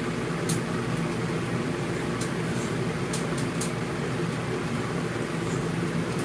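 Steady mechanical hum, even and unchanging, with a few short faint high clicks in the first half.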